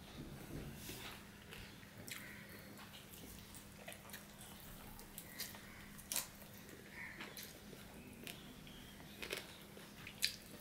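Faint close-miked eating sounds of a man eating rice and curry by hand: chewing with scattered wet mouth clicks and smacks, and fingers squishing rice on a steel plate.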